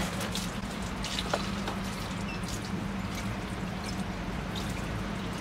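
Scattered faint water drips over a steady low hum, just after a tub has been topped up with water.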